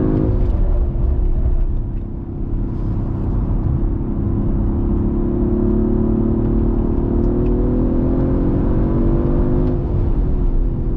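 Audi RS4 Avant engine on track: the revs fall as the car brakes, then climb steadily under acceleration for several seconds before dropping again near the end.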